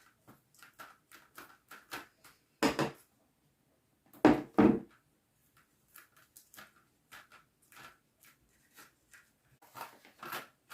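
A blade scraped repeatedly across a plastic-coated acrylic sheet to score it for cutting: quick short strokes about three a second, with a few louder, longer scrapes.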